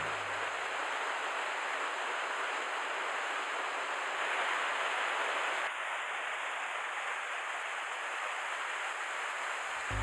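Steady rush of a mountain stream and small waterfall: an even hiss of running and falling water. It swells slightly partway through and settles again.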